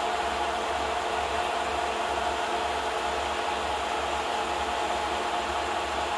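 Film projector running: a steady mechanical whir and hiss, with a low hum pulsing on and off in a regular rhythm.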